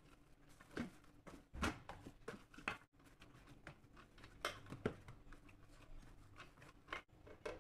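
Hands kneading maida dough in a stainless steel bowl, with extra flour worked in: faint, irregular pressing and slapping sounds, a handful sharper than the rest.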